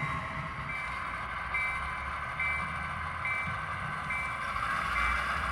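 Sound-equipped model locomotive's DCC sound decoder playing a running locomotive, with a bell ringing about once every second over a steady rumble.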